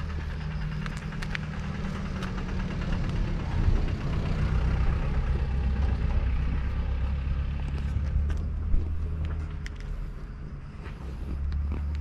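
A vehicle engine running with a steady low hum, swelling somewhat in the middle and easing off near the end, with a few sharp clicks over it.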